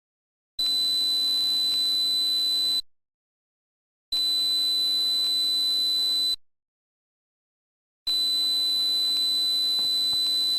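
A steady high-pitched pure tone, played as a tinnitus-masking sound, sounding three times for about two seconds each with dead silence of about a second and a half between.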